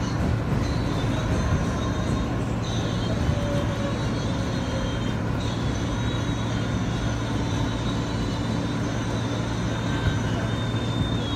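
New York City subway J train running along its elevated track, heard from inside the car: a steady rumble of the moving train with a faint high whine.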